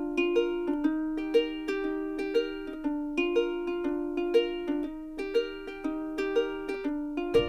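Background music: a bright plucked ukulele-style tune, notes picked in a steady, even rhythm.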